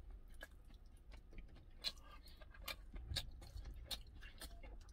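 Faint chewing of a mouthful of canned tuna, with scattered small clicks.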